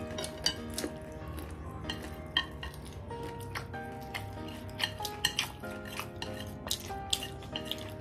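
Chopsticks clicking and tapping against ceramic dinner plates in many short, sharp clicks, over background music with held notes.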